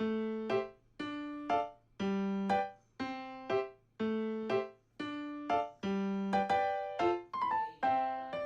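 Background music: a light, bouncy keyboard tune of short, decaying electric-piano notes in a repeating phrase with a steady beat.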